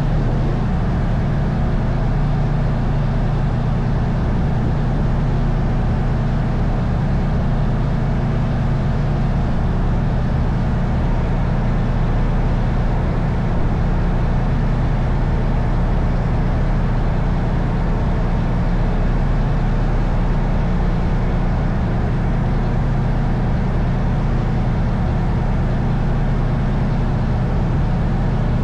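Faluwa boat's engine running steadily under way, a constant low drone with an even hiss above it.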